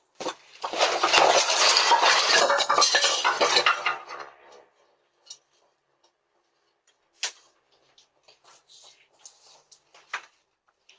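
A loud, dense clatter of hard objects rattling against each other for about four seconds, followed by a few scattered knocks and clicks.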